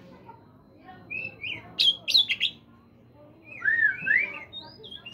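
Oriental magpie-robin singing: a quick run of sharp whistled notes, a short pause, then a phrase of swooping whistles about three and a half seconds in.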